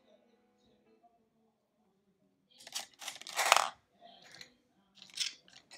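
Makeup brush and palette being handled and put down: a short cluster of clicks and rustling noise about three seconds in, and a briefer one near the end.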